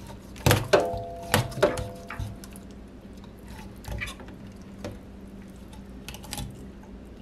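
A kitchen knife cutting through a raw Cornish hen in a stainless-steel sink gives a few sharp knocks in the first two seconds, two of them ringing briefly like metal, then fainter scattered knocks.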